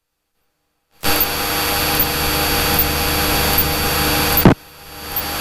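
Steady drone of a Cessna's piston engine and propeller heard inside the cabin, starting after about a second of dead silence. A sharp click comes near the end, the drone drops suddenly, then builds back up.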